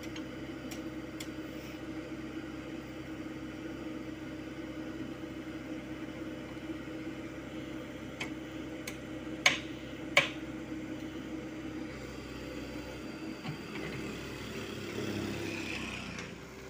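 Komatsu PC75UU mini excavator's diesel engine running steadily, with two sharp knocks a little under a second apart about halfway through. The sound rises and gets busier near the end as the machine works the bucket.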